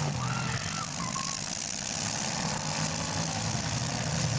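Several demolition derby cars' engines running together, a low rumble under a steady haze of noise, with a few faint brief squeals.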